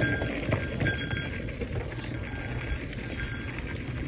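Mountain bike ridden fast over a dirt trail: a steady rumble of tyres and air, with the bike rattling over bumps and faint high metallic ringing that comes and goes.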